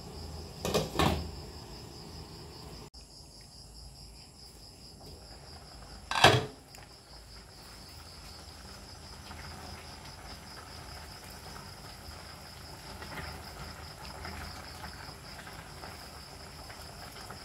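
Cookware knocking on a gas stove: a stainless steel pot and its glass lid clink twice about a second in, then clank loudly once about six seconds in. Underneath runs a steady high pulsing chirp of insects, like crickets.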